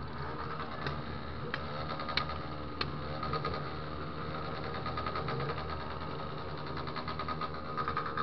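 Single-cylinder engine of a Honda XR 250 Tornado motorcycle running with a rapid, steady beat. The firing pulses become more distinct near the end.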